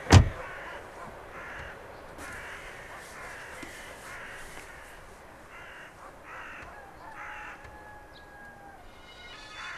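Crows cawing repeatedly, short harsh calls about two a second, thinning out toward the end. A single sharp thump at the very start is the loudest sound.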